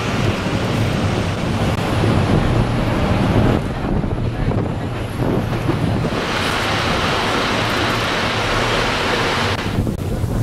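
Wind blowing on the microphone over a steady wash of outdoor noise. The noise changes suddenly about three and a half seconds in, again about six seconds in, and once more near the end.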